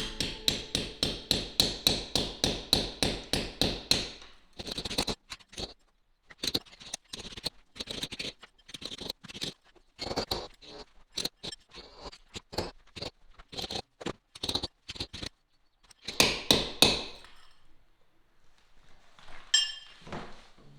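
Hammer blows on a chisel against brick and mortar: a fast, even run of about four strikes a second, then irregular knocks with scraping and clinks, and a quick flurry of blows about three-quarters of the way through.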